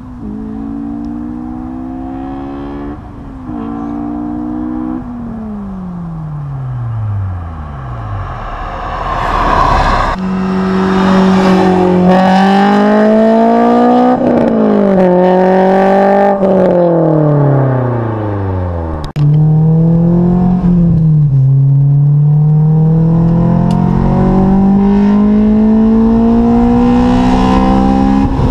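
Honda S2000's four-cylinder engine, breathing through an Invidia cat-back exhaust, test pipe and Injen cold-air intake, pulling up through the gears: the pitch climbs under throttle and drops sharply at each upshift. Twice it winds down off throttle, then comes back on much louder from about a third of the way in.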